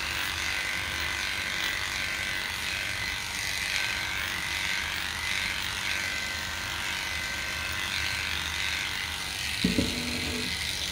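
Electric dog grooming clippers fitted with a 3F blade running steadily as they clip the coat under a dog's tail and down its sanitary area.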